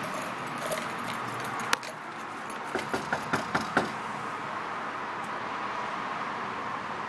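Knuckles knocking on a front door: a quick run of about six raps, about five a second, a little under three seconds in, with one single sharp knock or click shortly before. A steady background hum runs underneath.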